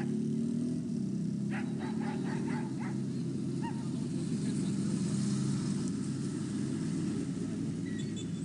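A steady low engine rumble throughout, with a dog barking about six quick times, starting about a second and a half in.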